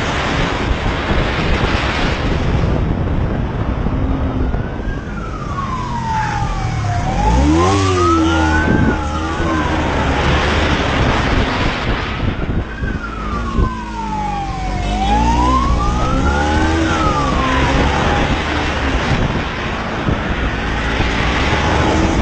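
Police motorcycle siren wailing in two slow sweeps through the middle, each falling and then rising again, over the motorcycle's engine and wind rushing on the microphone.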